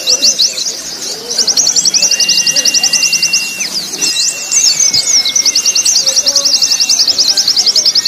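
Mixed recording of white-eye (pleci) song: long runs of very fast, high repeated notes, about a dozen a second, pausing briefly twice, over several long, level whistles.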